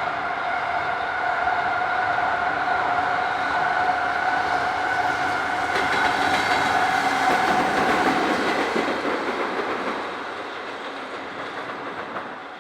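Freight train hauled by an electric locomotive passing over a level crossing, wheels clattering on the rails, while the crossing's warning bell rings. The bell stops about two-thirds of the way through and the train noise then fades.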